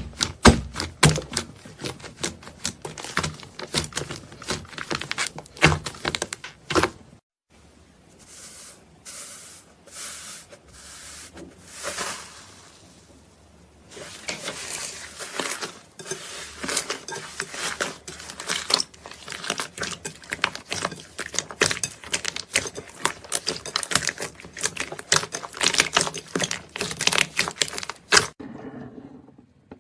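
Slime being squeezed and kneaded by hand, giving dense crackling and popping clicks. It breaks off at about seven seconds, turns to softer squishing for several seconds, then crackles again until it stops near the end.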